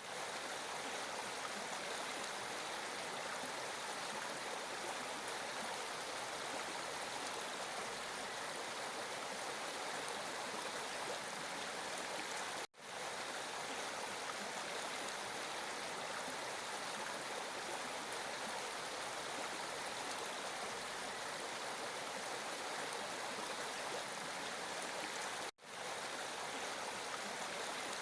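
Flowing water running in a steady, even rush that is mostly hiss with little low rumble. It cuts out for a split second twice, about 13 and 26 seconds in.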